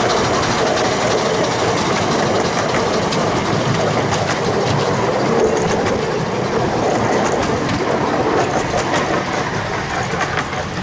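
Miniature-gauge steam train passing: a scale Darjeeling B-class 0-4-0 saddle-tank locomotive hauling open passenger carriages. The carriage wheels click and clatter over the rail joints as they roll by, easing off a little near the end.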